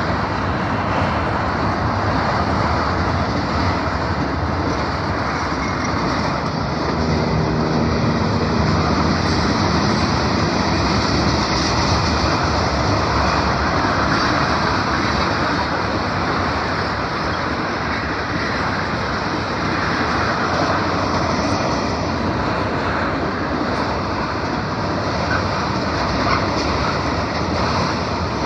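Train rolling past at close range: a steady rumble and rattle of wheels on the rails, a little louder around the middle.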